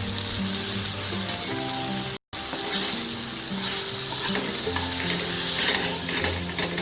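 Fish frying in hot oil, a steady sizzle, over background music. The sound cuts out for a moment about two seconds in.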